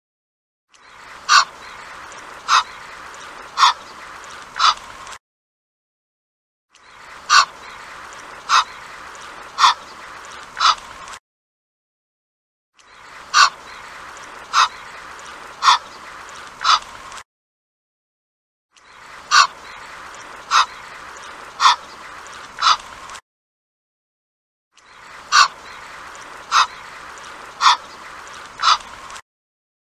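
Egyptian goose calling: short, sharp calls about one a second, in runs of four, with short silent gaps between the runs, five runs in all.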